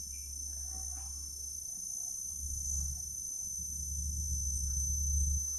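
Steady high-pitched chorus of insects trilling without a break. Under it runs a low rumble that swells in the second half.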